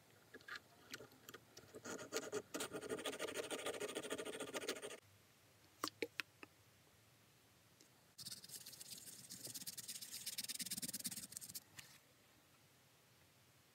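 Needle file scraping over a small sterling silver piece in quick strokes for about three seconds. Then a few sharp clicks, and a paper towel rubbing the silver clean for several seconds.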